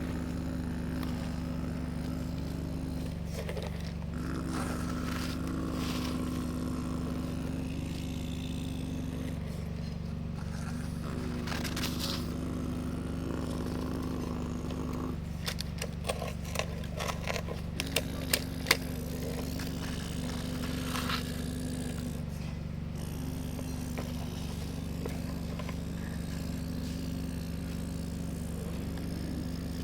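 Excavator running steadily with a constant machine hum while it works. A cluster of sharp knocks and scrapes comes about halfway through.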